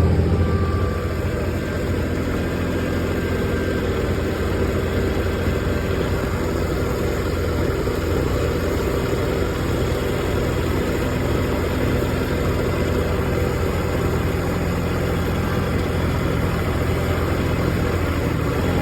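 Engine running steadily at a constant speed, easing slightly in level about a second in and then holding even.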